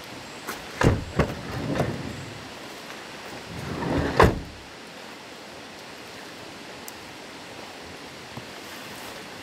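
Renault Kangoo doors: two sharp slams about a second in as the front door is shut, then a sliding side door rolls along its track and shuts with a heavy thud about four seconds in. Under it all is a steady hiss of light rain.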